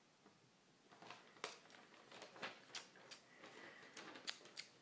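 Faint, sharp clicks and light rustling from a strip of white paper being handled, starting about a second in and scattered irregularly.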